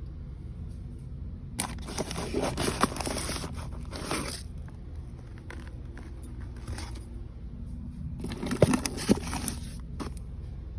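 Food packaging crinkling and crunching as it is handled, in two bouts of about two seconds each with sharp crackles, over a steady low hum.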